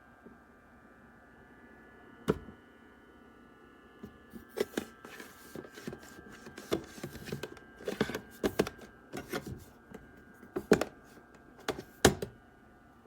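Irregular clicks, taps and knocks of objects being handled, with one sharp knock about two seconds in and a busier run of knocks from about four seconds on, over a faint steady whine.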